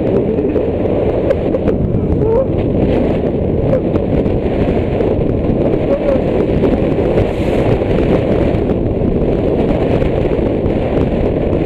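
Wind rushing and buffeting over the microphone of a scooter riding at speed, with the road and engine noise underneath.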